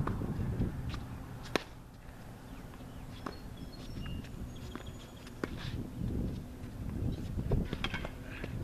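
Tennis rally: one sharp racket-on-ball hit about one and a half seconds in, then fainter hits and ball bounces, over a steady low rumble of wind on the microphone.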